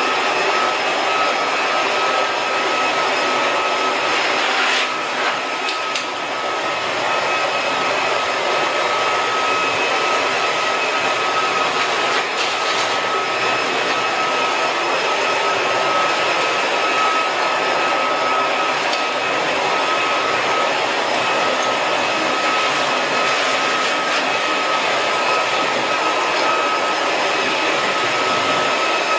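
Battery-powered toy train motors running steadily, a high electric whine over a rattly hiss, with a few faint clicks.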